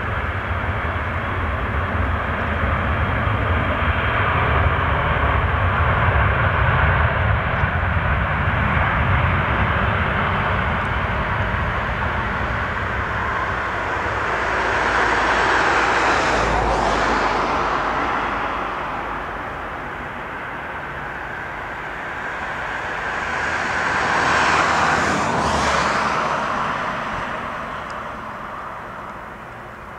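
Jet engines of a Boeing 747-400 freighter on its landing roll: a loud, dense jet noise that swells twice, about halfway through and again near the end, each time with a sweeping whoosh as the aircraft goes past, then fades.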